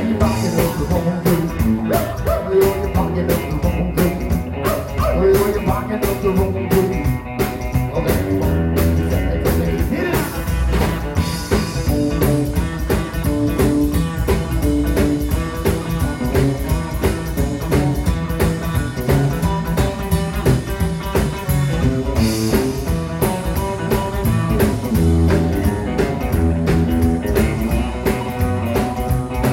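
Live rockabilly band playing: electric guitar, upright double bass and drum kit, with a steady driving beat.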